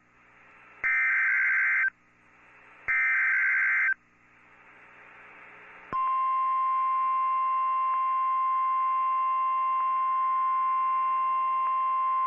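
NOAA Weather Radio Emergency Alert System activation: two one-second bursts of the buzzy SAME digital header data tones, with faint radio hiss in the gaps. About six seconds in, the steady 1050 Hz weather-radio warning alarm tone starts and holds.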